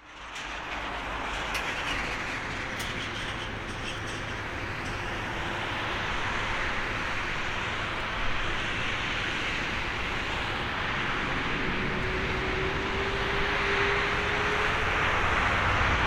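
Jet roar from an Airbus A350-900's Rolls-Royce Trent XWB turbofans at takeoff power, growing steadily louder, with a faint whine rising slowly in pitch during the second half.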